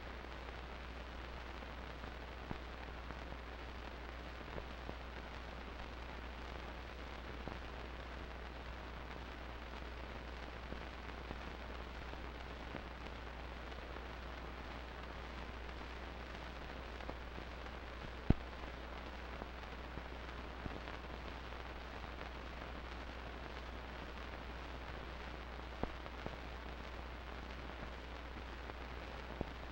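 Steady hiss and low hum of an old recording's noise floor, with scattered faint clicks and crackles and one sharp pop about eighteen seconds in; no band music is heard.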